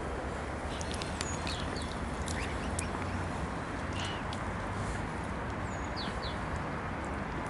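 Mute swans dabbling and feeding at the water's surface, their bills sieving and splashing through the shallow water, over a steady low rumble. A few faint, short, high chirps come through, around a second in and again near four and six seconds.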